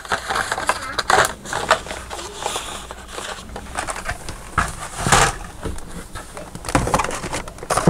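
Carded toy cars in plastic blister packs rustling, crinkling and clicking against one another as they are handled and shuffled in a plastic storage tub, with a few louder knocks, the loudest about five seconds in.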